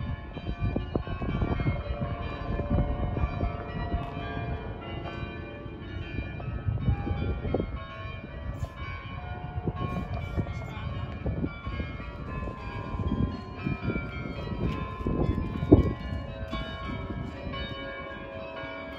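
Bells of several churches ringing together, with the Dom tower's carillon, in many overlapping ringing tones. Wind buffets the microphone in gusts, with one sharp bump about three-quarters of the way through.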